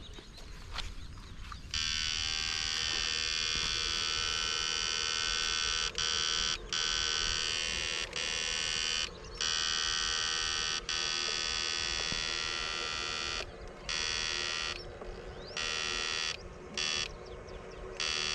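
Battery-powered backpack electrofishing unit giving a steady high-pitched electric buzz as current is sent into the water. It starts about two seconds in and is switched off for short moments about ten times.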